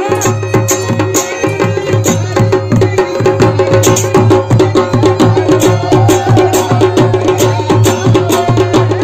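Kumaoni folk band music: a masak been (Himalayan bagpipe) holding a steady drone under a wavering melody, with dhol and damau drums beating a quick, even rhythm.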